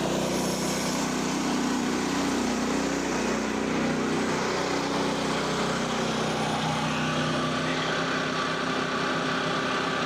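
Frontier OS27 portable band sawmill running steadily, its small gas engine droning under the noise of the band blade. The blade guide bearing on the exit side of the dust chute has failed, which may be audible in the running sound.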